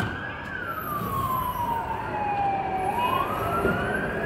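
Emergency vehicle siren on a slow wail: its pitch falls steadily for about two and a half seconds, then climbs back up near the end.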